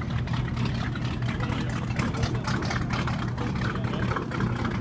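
Classic wooden inboard runabout's engine running at slow speed as the boat passes, a steady low rumble.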